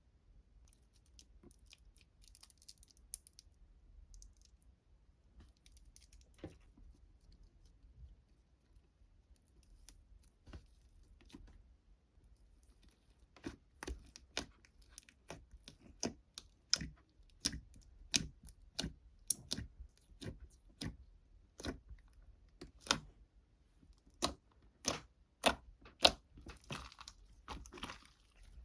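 Crisp crackling and crunching clicks: faint and scattered at first, then from about halfway a steady run of sharp cracks, about two a second.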